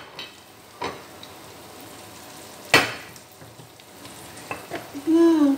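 Tofu frying in a pan of hot oil, a steady sizzle, with two sharp clicks of chopsticks, about one and three seconds in.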